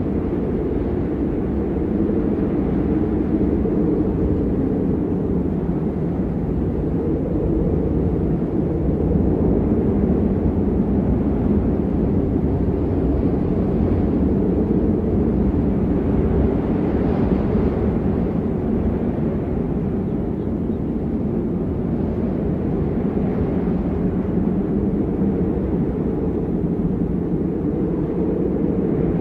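Strong wind buffeting the microphone: a steady, loud low rumble with no distinct events.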